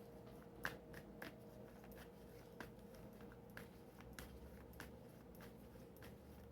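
Faint, scattered soft clicks of tarot cards being handled and drawn from the deck, over a faint steady hum.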